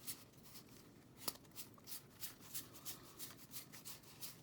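Pokémon trading cards being flipped through in the hands one after another, a faint, soft flick of card on card about three times a second, with one sharper tap about a second in.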